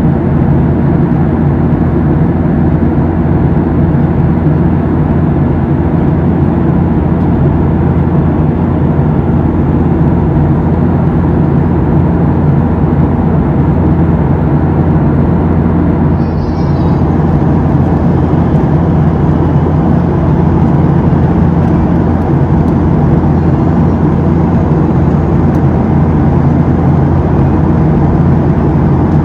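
Boeing 737-700's CFM56-7B jet engines heard from inside the cabin: a loud, steady drone with low buzzing tones.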